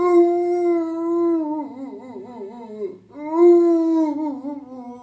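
A man's voice giving two long, drawn-out howling calls as a vocal impression, the first holding steady and then wavering up and down before it falls away, the second slightly shorter and slowly falling.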